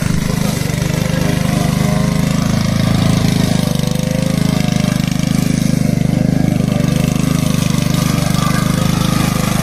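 Walk-behind petrol lawn mower, its small engine running steadily as it is pushed across grass.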